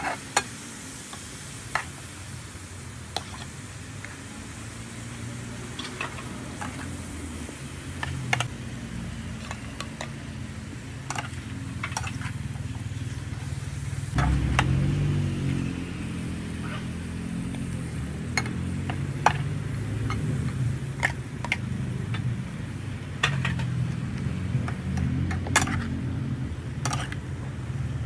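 Stir-frying in a pan: a metal spatula scrapes and taps against the pan over a steady sizzle, with sharp clicks scattered throughout. The sizzle gets louder about halfway through, as vegetables go in with the meat.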